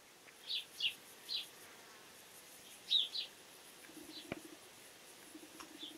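Outdoor nature sounds: short high bird chirps every second or so, and a buzzing insect twice in the second half, with a single click between the two buzzes.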